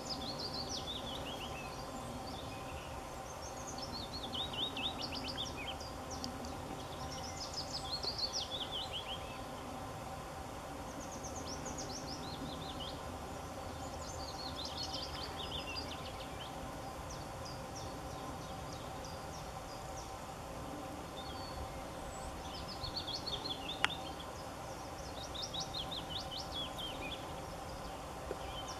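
A songbird singing a short, falling trilled phrase of about a second, repeated every three to four seconds, over a steady low background hum. A single sharp click comes about three-quarters of the way through.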